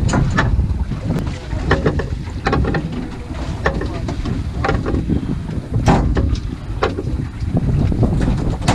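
Wind buffeting the microphone over open sea, a dense low rumble, with scattered short clicks and knocks as a fish is played on rod and reel from the boat.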